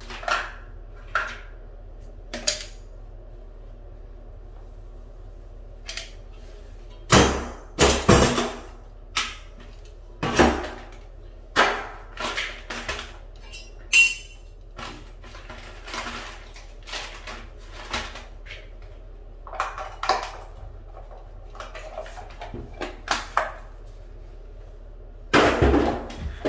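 Irregular knocks and clatter of hand tools and small wooden pieces being handled and set down on a ceramic tile floor, with a few short scrapes; the loudest clatter comes about seven seconds in and again near the end.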